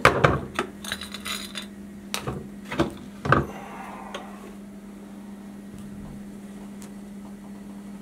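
Plastic floor drain being worked apart by hand, with a series of clicks and knocks in the first few seconds as the parts come loose, then a steady low hum on its own.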